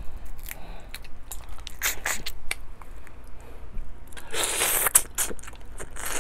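Snow crab leg shells cracking and crackling as they are picked apart by hand, with close-up mouth sounds of meat being sucked and bitten from the shell, including a longer slurp about four seconds in.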